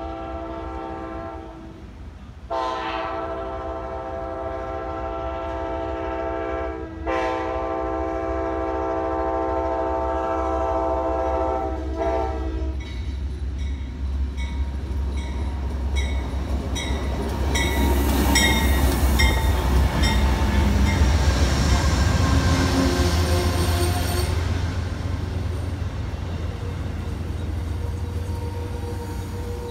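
Amtrak GE P42DC diesel locomotives passing close at speed, horn sounding: a blast that ends about a second in, then two long chords that stop about twelve seconds in. After the horn come the heavy rumble of the diesels and a fast, even clatter of wheels over rail joints, loudest as the locomotives go by, then the lighter rumble of the passenger cars rolling past.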